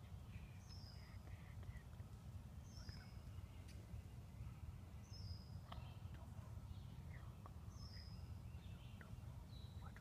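Wild songbirds singing faintly over a steady low background rumble; one bird repeats a short, high, falling phrase about every two to three seconds, with scattered lower chirps between.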